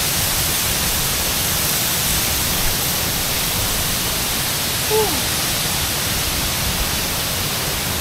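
Steady rush of water from a waterfall cascading over rock ledges.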